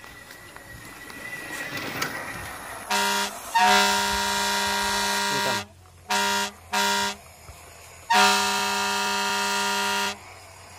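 Vehicle horn sound effect honking in a pattern: a short toot, a long blast, two short toots, then another long blast.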